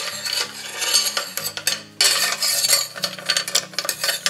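A metal spoon scraping and clinking around a stainless-steel bowl as it stirs pieces of dark chocolate melting over a water bath, with a brief pause about halfway through.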